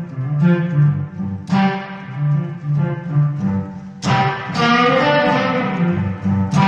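Electric guitar played solo: chords struck about once a second over a repeating low bass-note pattern, with a brighter run of notes starting about four seconds in.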